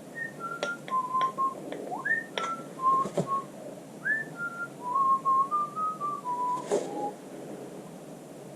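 A person whistling a short tune of clear single notes, a few of them sliding up, stopping about seven seconds in, with a few light clicks among the notes.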